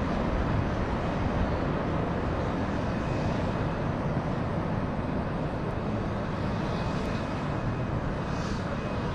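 Jet engines of two F/A-18-family fighters running at takeoff power as they climb away together: a steady, dense rush of engine noise, heaviest in the low end.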